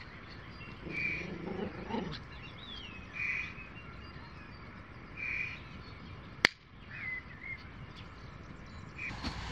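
Birds calling: short, repeated calls about every two seconds, with a few quick gliding chirps between them. A single sharp click about six and a half seconds in.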